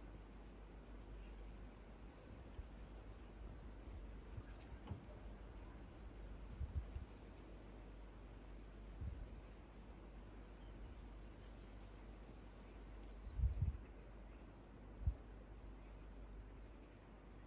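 Crickets chirring steadily as one continuous high-pitched drone, with a few soft low bumps, the loudest about 13 to 15 seconds in.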